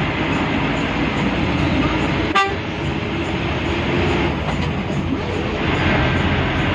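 Steady engine and road noise inside a moving bus, with one short horn toot about two and a half seconds in.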